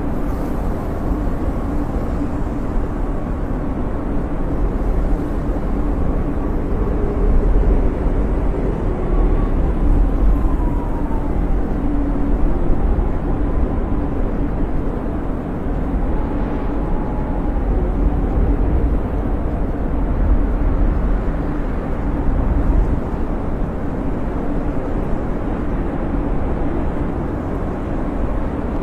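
Snowstorm wind blowing steadily with a deep rumble, and a faint whistling howl that rises and falls in pitch now and then.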